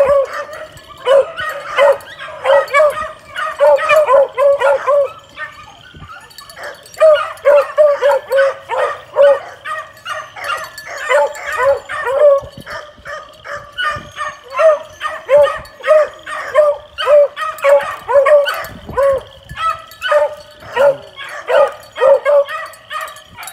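Hound puppies yipping and baying over and over in quick runs of short, high calls, several a second, as they work through a brush pile.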